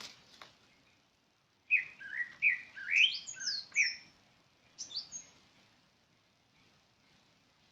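A bird singing: a quick, varied phrase of sweeping whistled notes starting about two seconds in, then a short couple of notes about five seconds in.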